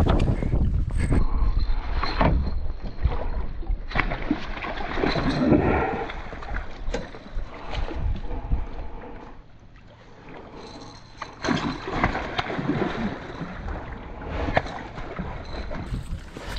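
Northern pike thrashing and splashing at the surface beside a canoe as it is netted, with scattered sharp knocks. The splashing comes in bouts, with a lull about ten seconds in.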